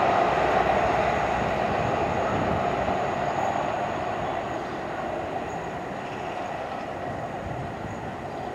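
Passenger train running past on the railway line, its steady noise fading gradually as it moves away.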